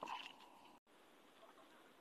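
A utensil scraping against a stainless steel mixing bowl while stirring a floury vegetable mixture, with a faint metallic ring. It cuts off suddenly just under a second in, leaving faint room tone.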